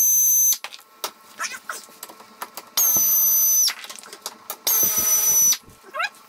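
Pneumatic air ratchet spinning bolts out of a UTV's skid plate in three short bursts of a high, steady whine, with small clicks between bursts.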